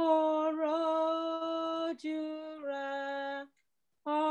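A man singing a slow Yoruba hymn with no accompaniment, holding long steady notes. There is a short break about three and a half seconds in before the next note begins.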